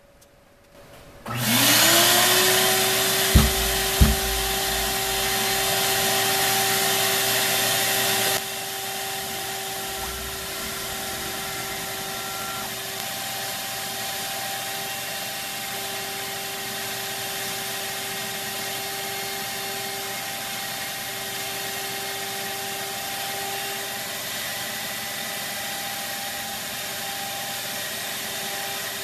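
Vacuum motor for a CNC router's vacuum hold-down fixture switching on. It spins up with a rising whine and settles into a steady rushing run, with two sharp knocks a few seconds in. About eight seconds in the rushing air drops and the motor runs on more quietly.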